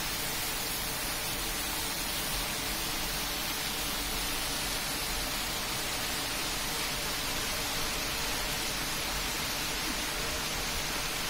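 Heavy rain pouring steadily onto a street, trees and parked cars: a constant, even hiss with no breaks.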